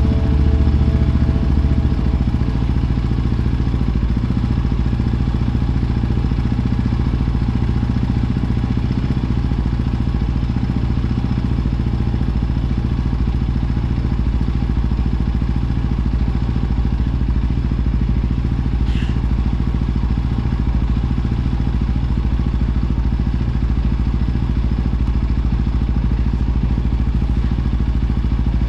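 A small engine runs steadily, with a brief high chirp about nineteen seconds in.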